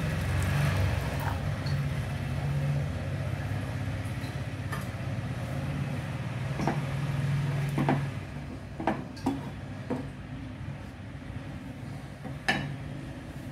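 Water poured from a steel tumbler splashes into simmering dal near the start, then a wooden spatula stirs the dal and knocks against the steel pan several times. A steady low hum runs underneath for the first two-thirds.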